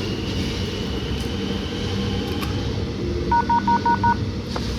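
A click about two and a half seconds in, then a short chime of five quick two-note electronic beeps from the platform's passenger information point, the signal that an automated announcement is about to play. A steady low hum runs underneath.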